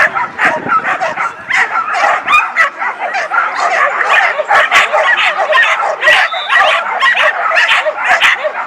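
Many dogs barking and yipping at once in a dense, continuous din, with high whining yelps mixed in.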